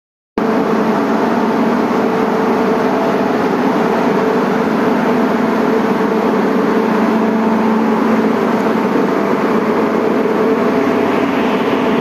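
Steady machinery noise in a centrifugal chiller plant room: a dense rush with several steady hum tones in it, starting a moment in and holding level throughout.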